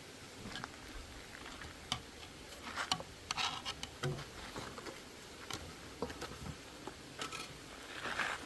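Kitchen handling sounds from utensils and food: scattered light clicks and knocks, with a couple of short scraping rustles, one about two and a half seconds in and one near the end.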